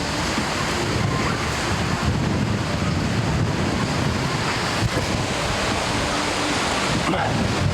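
Gale-force wind buffeting the microphone: a loud, continuous rumble and hiss that surges and eases with the gusts.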